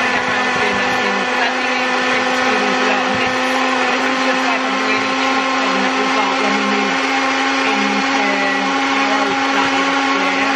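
Countertop blender running steadily at high speed, blending a smoothie of frozen blueberries, banana, cashews and oat milk.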